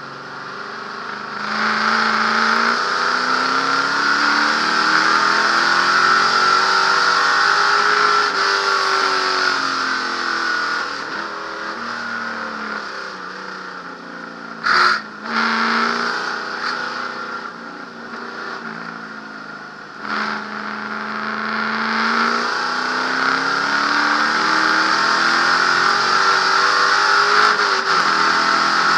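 Ford Galaxie 427 V8 race engine heard from inside the cabin under racing load: the revs climb steadily for several seconds, drop away, then climb again near the end. A brief sharp burst of noise about halfway through.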